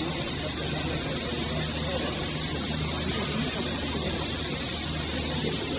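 Steady machinery hum under a loud, even high hiss, with faint voices in the background.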